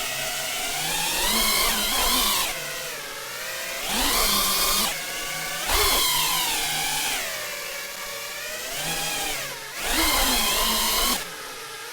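FPV racing drone's brushless motors whining, the pitch rising and falling with throttle, with louder surges about two, four, six and ten seconds in.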